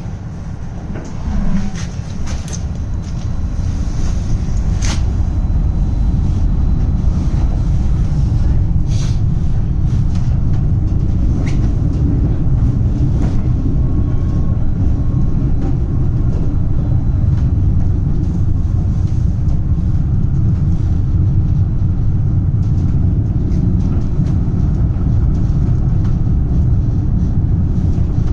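Rail car running along the track, a low steady rumble that builds over the first few seconds as it gathers speed, then holds, with a few sharp clicks and knocks from the wheels and car.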